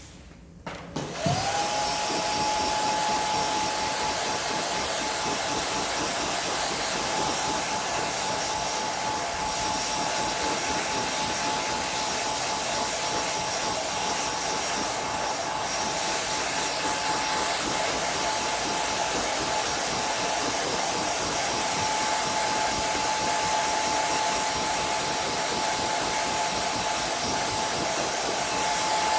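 Hair dryer switched on about a second in, its motor whine rising quickly to a steady pitch over a constant rush of air, then running steadily.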